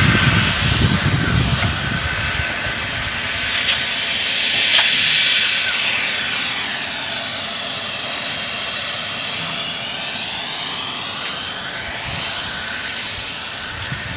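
Wind buffeting the microphone for the first two seconds, then a steady rushing hiss that swells about five seconds in and takes on a slow sweeping whoosh.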